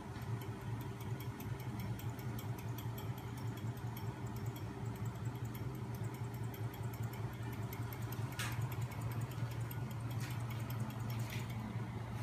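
A homemade magnet-driven crankshaft machine running steadily, its small DC electric motor and spinning flywheel giving a low hum with a fast, light ticking. Three brief rustles come in the last few seconds.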